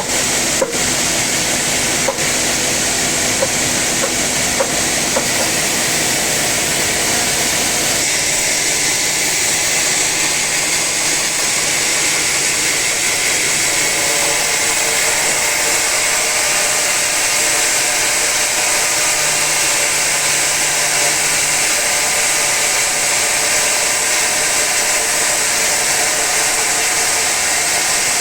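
Sawmill saw cutting through a large teak log, a loud steady hissing whine of the blade in the wood. A few sharp clicks come near the start, and the low rumble underneath drops away after several seconds.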